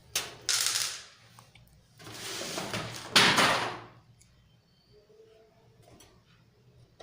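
Computer power supply being handled and fitted into a metal PC case: two scraping, sliding noises. The first is about a second long; the second is about two seconds long and loudest near its end.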